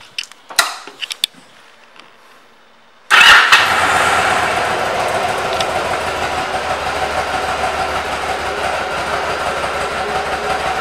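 A few faint clicks, then about three seconds in the 2004 Yamaha V Star 1100 Classic's air-cooled V-twin is started: a sudden loud start that settles into a steady idle.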